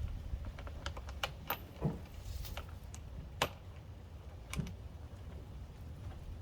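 Irregular light clicks and a few duller knocks: hard plastic fender-flare pieces and screws being handled and fitted against the vehicle's plastic bodywork, over a steady low rumble.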